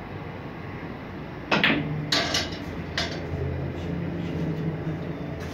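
Snooker cue tip striking the cue ball about a second and a half in, then sharp clicks of snooker balls hitting each other or the cushions twice more within the next second and a half, over a steady low hum.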